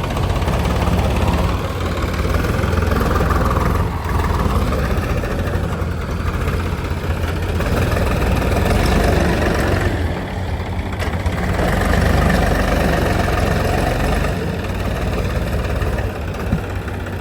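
Heavy diesel engine running steadily, its note swelling and easing every few seconds.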